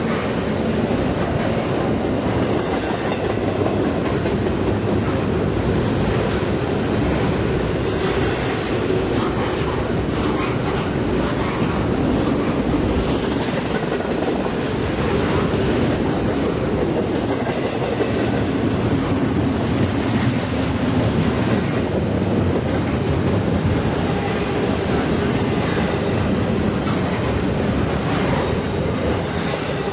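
Train rolling past at close range, with a steady wheel-on-rail rumble.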